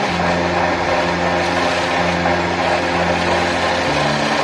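Wood lathe running steadily while a turning chisel cuts a spinning wooden disc, giving a continuous mechanical whir with cutting noise. Background music with held low notes plays under it, its chords changing about once a second and again near the end.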